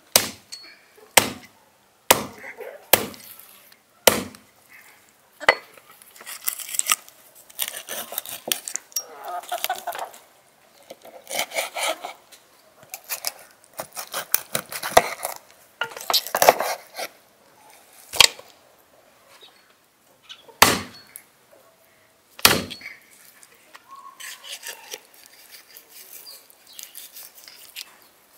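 Hatchet chopping through a raw goose wing on a wooden chopping stump: six sharp chops, about one a second, in the first five seconds. Then a knife cuts and cracks through the goose's skin, joints and cartilage on a wooden board, with dense crackling and clicking and a few harder knocks of the blade on the board.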